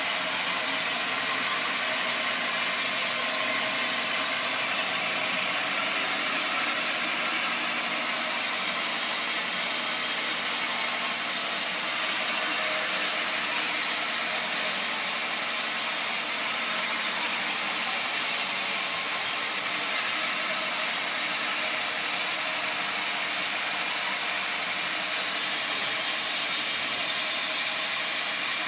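Sawmill machinery running steadily without a break.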